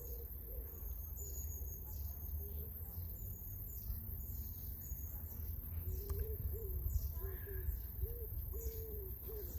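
Outdoor birdsong: small birds chirping in short high notes, joined from about halfway through by a dove cooing in a string of short, low, repeated notes, over a low steady rumble.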